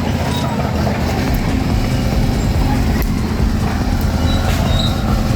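Caterpillar D6R bulldozer's diesel engine running steadily, with scattered light clicks and snaps over the drone.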